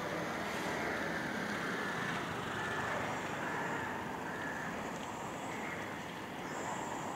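Steady urban outdoor background noise, a constant hiss and hum of distant traffic, with a faint high tone coming in near the end.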